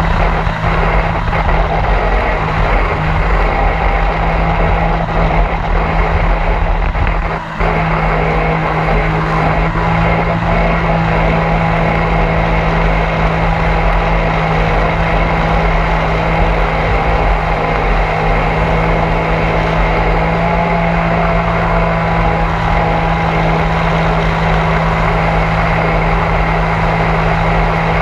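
Mini jet boat's engine running at a steady speed underway, with water rushing past the hull; the sound dips briefly about seven and a half seconds in.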